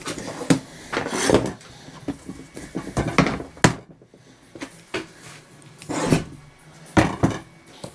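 Laminate flooring planks knocked and slid across a plywood workbench: a string of scraping rubs and sharp wooden knocks, the loudest about three and a half seconds in and near the end.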